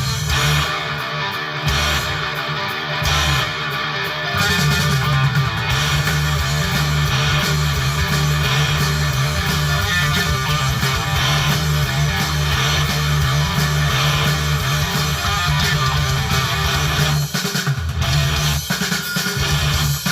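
Background music led by electric guitar with a bass line and a steady beat.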